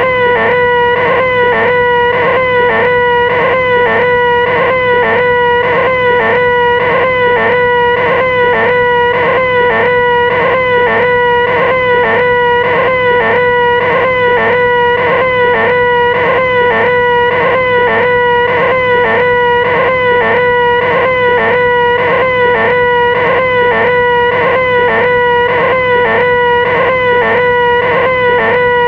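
A person's voice making the 'most annoying sound in the world': a loud, whiny, high-pitched drone held on one pitch without a break, with a slight wobble in pitch about twice a second.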